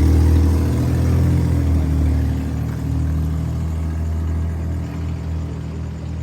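Car engine running close by, a low steady hum whose pitch shifts slightly and that grows quieter over a few seconds.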